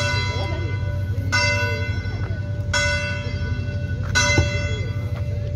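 A church bell tolling, one stroke about every second and a half, each stroke ringing on until the next, over a steady low rumble.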